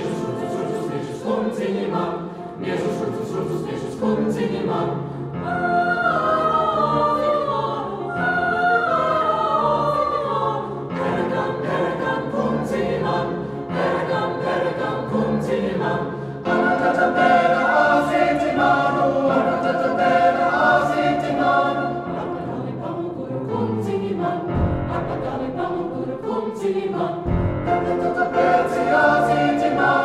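Choral music soundtrack: a choir singing sustained, gliding melodic lines over a musical accompaniment.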